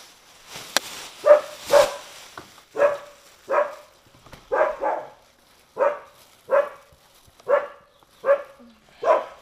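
A dog barking repeatedly, about a dozen short barks spaced half a second to a second apart, with a sharp click near the start.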